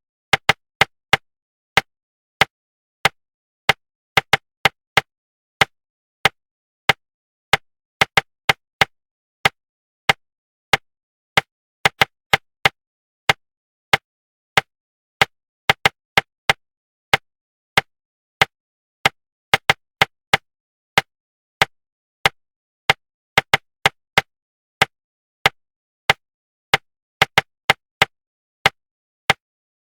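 Sharp knocks in an uneven, changing rhythm, about two a second and sometimes in quick clusters, with clean silence between them. This is a tapped rhythm pattern of the rhythm-knock kind, used to keep the reader from sounding out words while speed reading.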